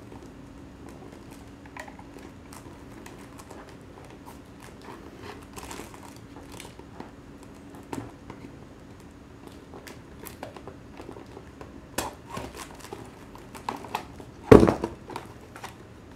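Plastic gift box being worked open by hand, its seal slit and peeled: scattered light crinkles and clicks of plastic and paper packaging, with one louder knock near the end. A faint steady hum lies beneath.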